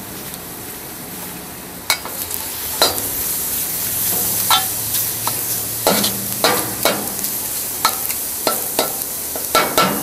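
Chicken and garlic sizzling in a dry wok with no oil. From about two seconds in, a metal wok spatula scrapes and clanks against the wok about a dozen times as the food is stirred.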